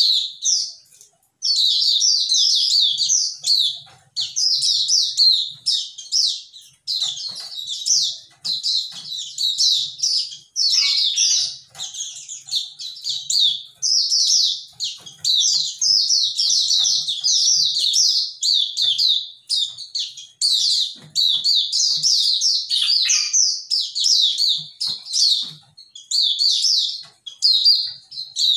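Caged white-eye singing a long, fast, high twittering song in quick phrases with only short breaks.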